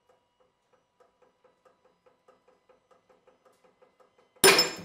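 A bolt loaded in shear under a hydraulic press snaps near the end with a sudden loud crack, a second crack just after, and a short metallic ringing that fades quickly. The bolt is failing in shear at roughly 1.75 tonnes of load. Faint rapid ticking comes before the break.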